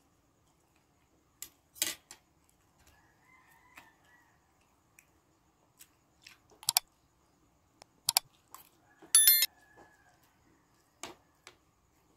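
Metal spoon and fork clinking and scraping against a plate while eating: a handful of separate sharp clinks, the loudest a ringing clink about nine seconds in.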